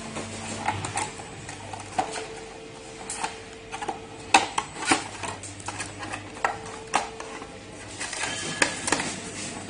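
Black plastic battery-box cover of a three-wheel electric scooter being worked back into place by hand: irregular clicks and knocks of plastic parts, the sharpest about four and a half seconds in and again near the end.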